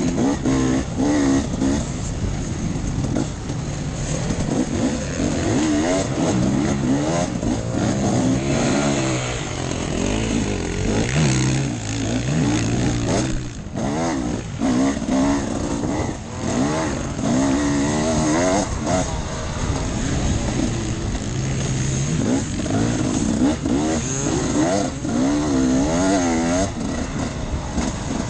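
Off-road enduro motorcycle engine revving up and down over and over as the throttle is opened and closed while riding.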